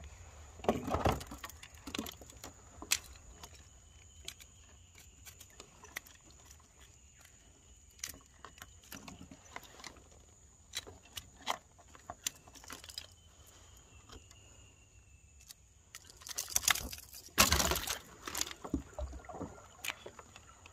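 Scattered light clicks, taps and clinks of fishing tackle being handled in a plastic kayak: a lure and line being worked loose from a freshly caught fish. A louder run of knocks and rustling comes near the end, and a steady high thin tone runs underneath.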